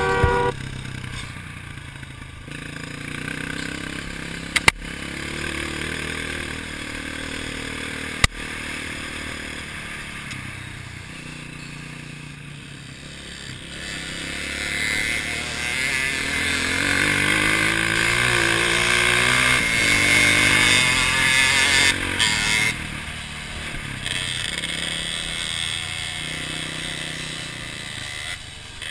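Trail dirt-bike engine running and being revved as the bike climbs and works along the trail, loudest and highest in pitch about two-thirds of the way through. Two sharp knocks, about five and eight seconds in.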